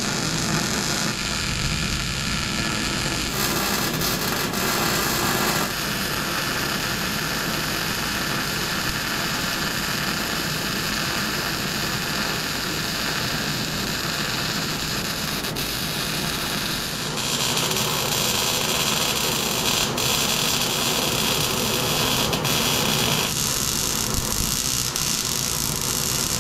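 Harbor Freight Vulcan wire-feed welder arc sizzling steadily as beads are laid on steel square tubing. The sound changes in character a few times as the welding moves from pass to pass.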